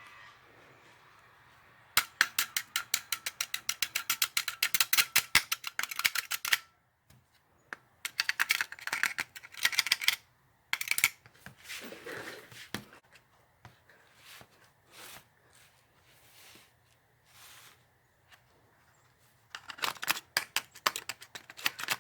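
Screwdriver tip scraping burnt contact points inside a Whirlpool dryer timer, in rapid strokes. It comes in several bursts with short pauses between. The contacts are scraped because burning has left them black and no longer touching, which cuts the heat.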